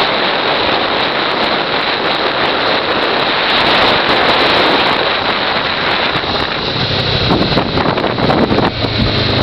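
Wind rushing over the microphone of a moving motorcycle, a steady loud noise, with the motorcycle engine's low hum coming through more plainly in the last couple of seconds.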